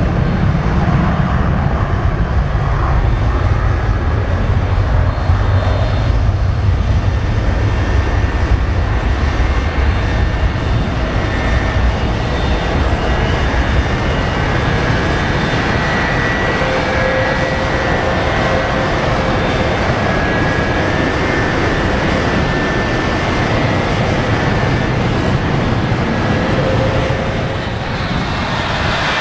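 McDonnell Douglas MD-88's twin rear-mounted Pratt & Whitney JT8D turbofans at takeoff power: a heavy jet rumble on the takeoff roll that eases over the first ten seconds or so as the airliner climbs away, leaving a steadier high whine.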